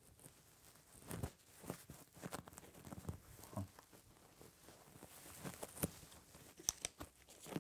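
Papers and small objects being handled and shifted on an office desk: faint rustling with scattered light knocks and clicks, a few sharper clicks near the end.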